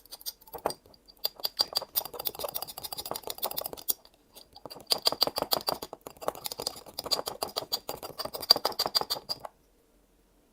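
Spoon stirring and scraping a honey, garlic and cayenne mixture in a glass jar, in two spells of rapid clicking and scraping. It stops about nine and a half seconds in.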